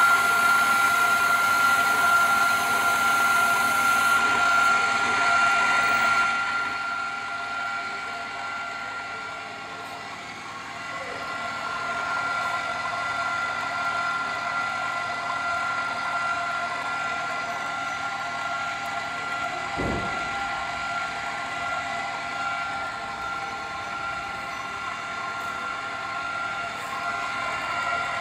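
Electric bar threading machine running with a steady whine of several fixed tones. It is louder with a high hiss for the first six seconds or so, then settles quieter; a single short thump comes about twenty seconds in.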